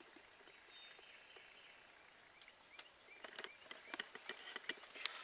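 Faint soft clucking from wild turkeys: a run of short, quick notes with scattered sharp ticks between about two and five seconds in, after a thin high whistle about a second in.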